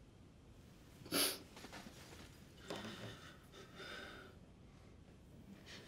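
A crying woman blows her nose into a handkerchief in one short, sharp burst about a second in, followed by quieter sniffles and breaths.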